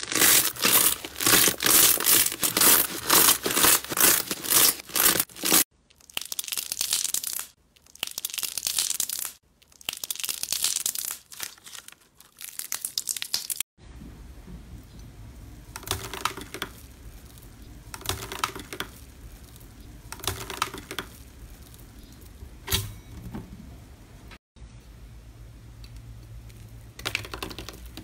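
Hands squeezing and kneading white fluffy slime with dense, fast crackling. Then slime being pressed through gold foil, crinkling in short bursts about every two seconds.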